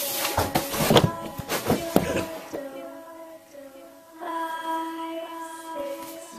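A quick run of thuds and crashes over the first two seconds or so, then background music of long held notes.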